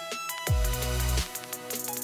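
Electronic background music with a deep bass note that slides down in pitch about half a second in, under steady higher notes.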